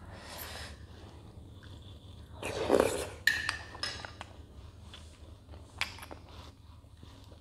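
Metal spoon clinking and scraping against a glass bowl of dudroti in milk: one clear clink that rings briefly a little before the middle, and a few lighter ticks later. Just before the ringing clink comes the loudest sound, a short rush of noise.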